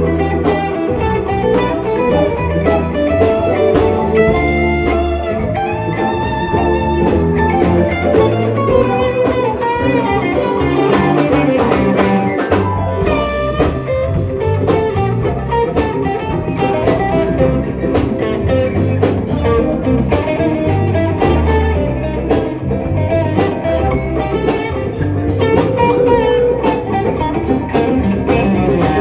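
Live band playing an instrumental jam: electric guitar lines over drum kit and bass, without singing.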